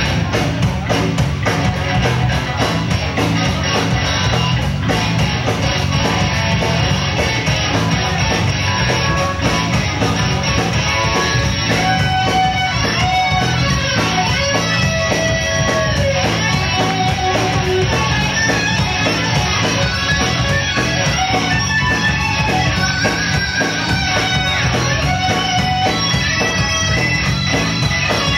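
Live rock band playing an instrumental passage, with bass and drums keeping a steady beat. From about twelve seconds in, a guitar plays a lead line of long notes that bend up and down in pitch.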